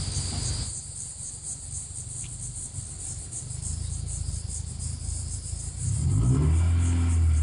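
Subaru WRX's turbocharged flat-four with an aftermarket exhaust, rumbling low at first, then accelerating about six seconds in, its note rising in pitch and getting loud. Crickets chirp in a steady pulsing rhythm throughout.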